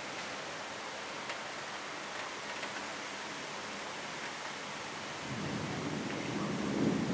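Rain hissing steadily. About five seconds in, a low rumble of thunder rolls in and grows louder toward the end.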